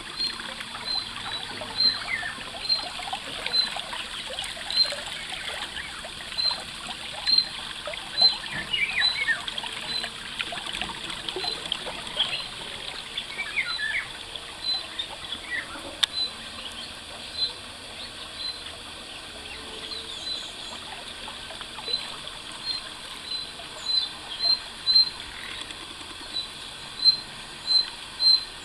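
Shallow stream trickling over stones, with a bird repeating a single short high chirp about once or twice a second.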